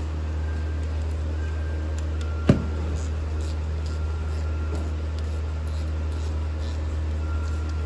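Steady low hum, with faint light clicks of hand work on a car's front brake caliper bolts and one sharp metallic clink about two and a half seconds in.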